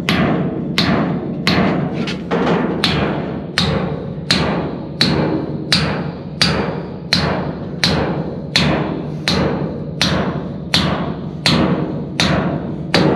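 Short-handled sledge hammer striking a steel drift bar again and again, driving the dump bed's hinge pivot pin home: about eighteen evenly paced metal-on-metal blows, roughly three every two seconds, each ringing briefly. The military truck's engine runs steadily underneath.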